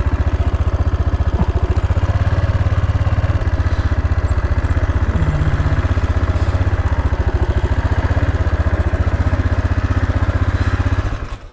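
Single-cylinder engine of an AJP PR7 adventure motorcycle running steadily at low revs with an even thumping pulse, switched off about 11 seconds in so the sound stops abruptly.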